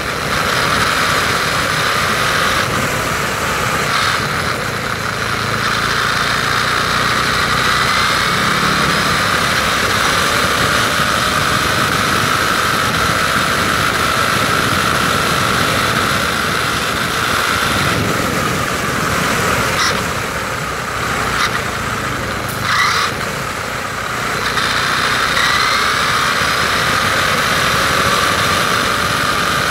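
Electric motor and gearbox of a WLToys 12428 RC truck whining as it drives over asphalt, with the whine rising and falling as the throttle changes and cutting briefly a few times as the throttle is lifted, over steady tyre rumble.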